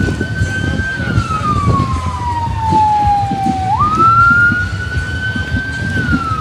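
Siren wailing in slow cycles: a quick rise in pitch, a held high note, then a long slow fall, repeating about every five seconds. Beneath it runs an uneven low rumble of background noise.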